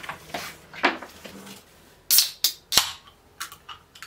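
Aluminium Coca-Cola can being handled, its tab being worked: a quick run of sharp clicks and snaps about two seconds in, then a few lighter clicks.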